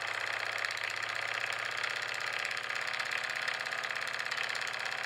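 Scratch-built model vertical steam engine running steadily, giving a rapid, even beat of chuffs.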